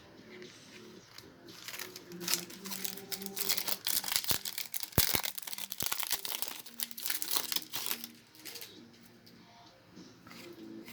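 Foil trading-card booster pack crinkling and tearing as it is opened, a run of dense crackles lasting several seconds.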